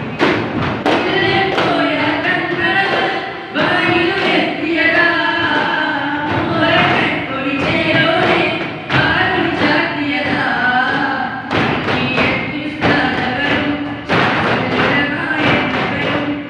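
Daff muttu: daf frame drums struck together in rhythm, with singing carried over the drumming.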